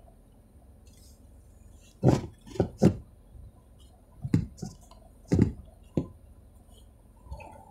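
A low, steady rumble with a cluster of about six sharp knocks and thuds in the middle, coming in quick pairs and singles over about four seconds.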